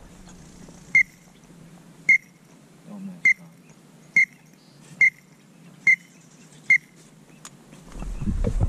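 Duck whistle call blown in seven short, high peeps, about one a second. A rising rush of noise builds near the end.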